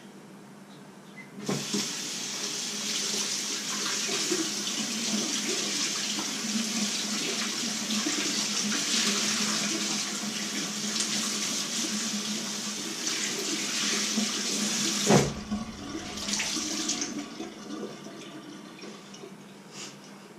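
Kitchen tap running into the sink while hands are washed under it. It comes on about a second and a half in and is shut off with a knock about fifteen seconds in.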